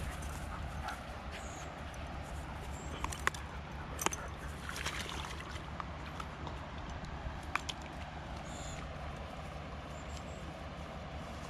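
Steady outdoor ambience with faint trickling from a shallow river. A few sharp clicks and light splashes around the middle come from a dog in the shallow water at the bank.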